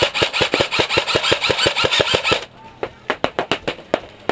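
Airsoft gun firing a rapid string of shots, about seven a second, for two and a half seconds, then a slower string of single shots.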